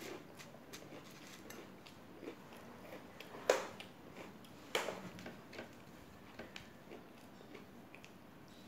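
Close-miked eating of crunchy Indian fried snacks and puffed rice: small chewing and crunching clicks, with two louder sharp knocks about three and a half and five seconds in.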